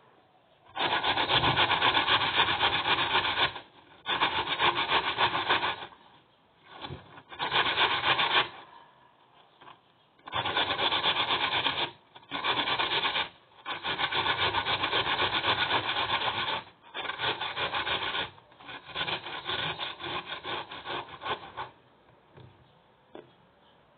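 Raw peeled potato grated on the fine side of a stainless steel box grater: runs of rapid rasping strokes, each a second to three long, broken by short pauses.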